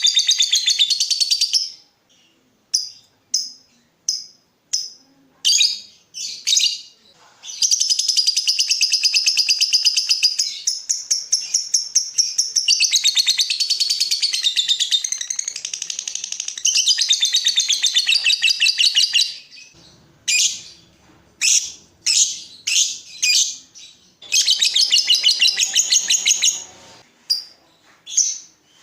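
Lovebird singing: long runs of very rapid, high chattering lasting several seconds each, the 'ngekek' song, broken by short separate chirps.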